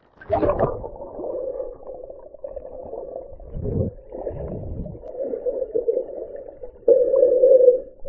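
Muffled water sloshing and bubbling, heard through a camera underwater as a swimmer moves through a shallow stream. Two low thuds come around the middle, and a louder rush of water comes near the end.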